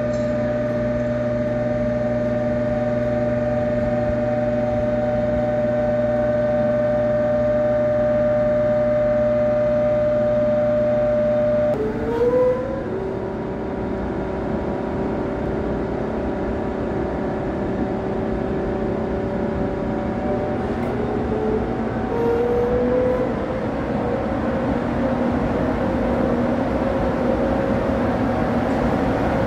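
KTX-I high-speed train's power car at the platform giving off a steady electrical hum and whine made of several held tones. About twelve seconds in the tones change, and from about two-thirds of the way through a whine climbs slowly in pitch as the train starts to pull away.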